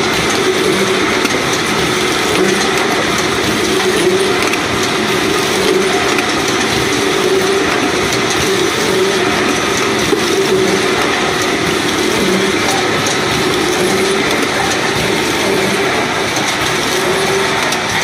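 High-speed eye drop filling, plugging and capping machine running: a steady mechanical clatter of its rotary turntable and heads, with a steady hum.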